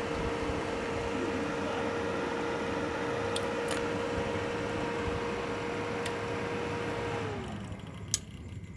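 Cooling fan of a Lakoni 120A inverter welding machine running with a steady whirr and hum, then winding down and falling in pitch about seven seconds in. A sharp click comes about a second later.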